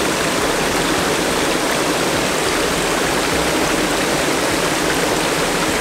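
Small waterfall spilling over a rock lip into a pool: a steady, loud rush of splashing water close to the microphone.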